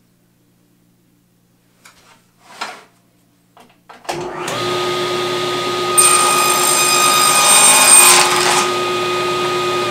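Table saw switched on about four seconds in, its motor spinning up to a steady running tone. From about six seconds its blade crosscuts the end of a board for roughly two and a half seconds, a squaring cut fed against a miter gauge. After the cut the saw keeps running free.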